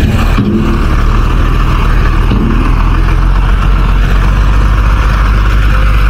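Motor grader's diesel engine running steadily with a constant low drone.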